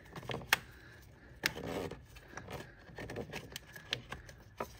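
B58 engine's plastic oil filter cap and cartridge being pulled out of the filter housing and worked past hoses: scattered light clicks, knocks and scrapes of plastic on plastic, with a sharp click about half a second in and another about a second and a half in.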